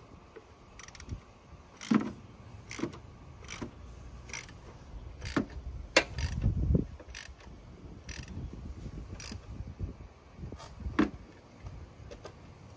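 Hand socket ratchet on a 24 mm socket clicking as its handle is swung back between strokes, tightening the engine's oil filter housing cap: short clicks about once a second.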